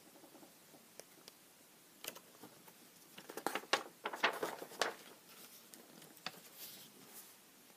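Paper rustling and soft clicks as the pages of a paperback picture book are handled and turned, most of it in a cluster about two to five seconds in.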